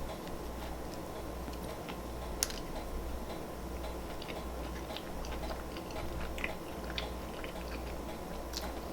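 Close-miked chewing of a glazed donut: soft, irregular wet mouth clicks over a low hum, with one sharper click about two and a half seconds in.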